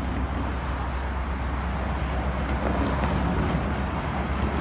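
Street traffic noise with a steady low rumble, a car pulling away across the railroad crossing.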